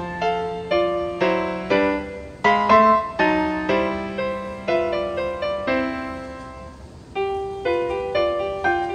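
Background piano music: a gentle melody of single struck notes over held bass notes, thinning out briefly about seven seconds in before the notes pick up again.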